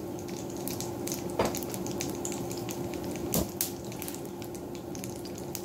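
Bacon fat sizzling with scattered crackles in a cast-iron skillet as lumps of bacon grease melt, with a couple of sharper pops. A steady hum from a food dehydrator runs underneath.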